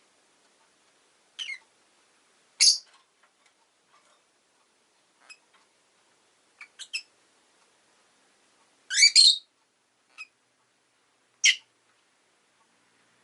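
Rosy-faced lovebird giving short, sharp, high-pitched chirps and squawks at irregular intervals, with the loudest double call about nine seconds in.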